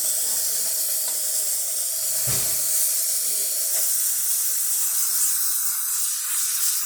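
Profitec Pro 500 steam wand venting steam with a steady, loud hiss, with a brief low thud about two seconds in.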